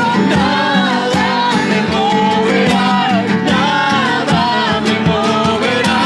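Music: a song sung over guitar accompaniment with a steady strummed rhythm.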